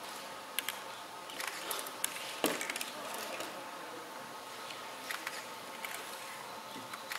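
Light knocks and scrapes of a small figure being tipped over and dragged across a wooden stage floor on the end of a fishing-rod line, the loudest knock about two and a half seconds in, over a steady hiss.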